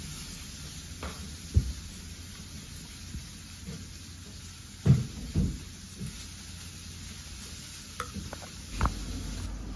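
A metal spoon spreading green chutney over halves of a burger bun, a soft wet scraping with a few short knocks of the spoon against the bun and plate, the loudest about halfway through.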